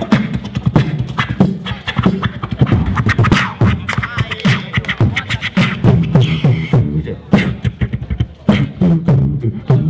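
Beatboxing into a handheld microphone, amplified: fast rhythmic kick, snare and click sounds made with the mouth over a strong low bass, without a break.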